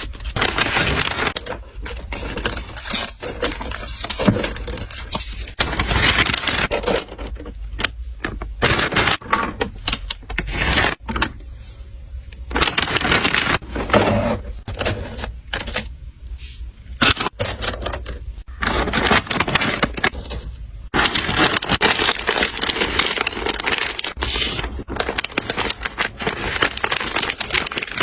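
Hands packing an order: plastic packaging crinkling and rustling in irregular bursts, with small hard items clicking and tapping against each other.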